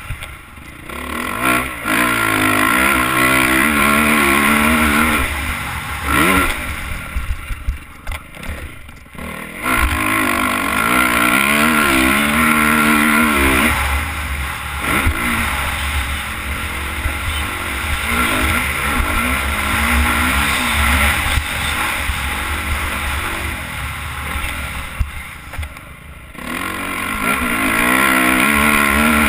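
Motocross dirt bike engine revving hard and backing off again and again as it is ridden around the track, heard close up from the rider's helmet. The throttle is shut off briefly about a second in, again around eight to nine seconds, and once more near the end. A steady low wind rush sits under the engine.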